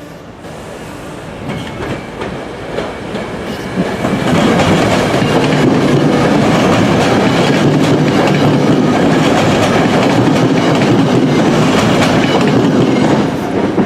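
Commuter train running into the station close to the platform: its wheels on the rails grow louder over about four seconds, then stay loud and steady, easing slightly near the end.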